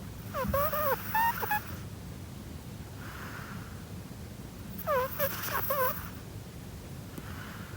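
Chihuahua snoring in its sleep: two bouts of high, squeaky, whistling snores about four seconds apart, each a few short wavering notes, with a softer breathy breath between.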